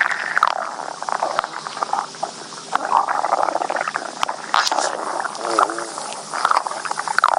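Stomach growling: a continuous run of gurgles and bubbling, squeaky rumbles with small clicks, rising and falling in pitch.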